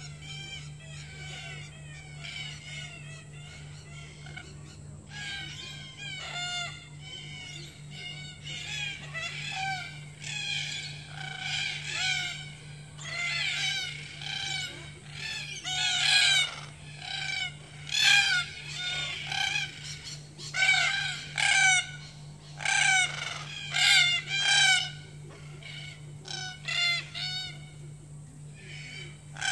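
A flock of red-tailed black cockatoos calling over and over with harsh, grating calls. The calls are sparse at first, come thick and loud in the middle, then thin out near the end.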